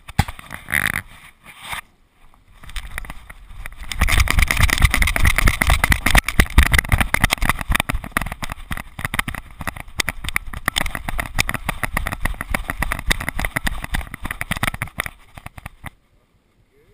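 Wind buffeting the microphone of a dog-mounted GoPro, with rapid knocking and rattling of the camera on its harness as the Border Terrier carrying it runs. The noise builds about four seconds in and stops abruptly near the end.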